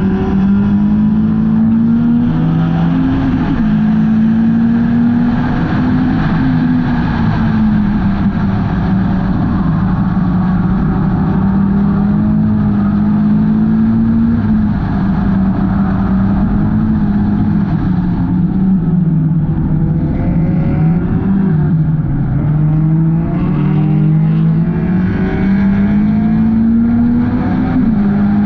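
Hornet-class race car's engine running hard at racing speed, its note climbing on the throttle and dropping sharply each time the driver lifts for a turn, then climbing again through to the end.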